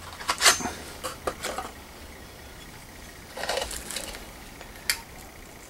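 Halogen headlight bulbs handled in the fingers: a few light clicks of their metal bases, with a short rustle a little past the middle.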